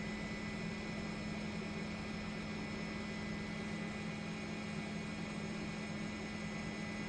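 A steady mechanical drone: a constant low hum with a few thin steady tones above it over an even hiss, unchanging throughout.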